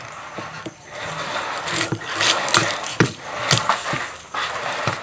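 Kitchen utensils scraping and clattering, with a few sharp knocks about three seconds in.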